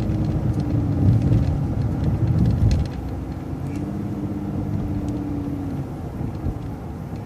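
City transit bus in motion, heard from on board: engine drone and road rumble, becoming noticeably quieter about three seconds in and leaving a steady hum.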